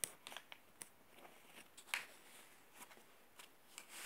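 A sheet of paper being folded and creased by hand: faint, crisp rustles and ticks, with the sharpest crackle about two seconds in.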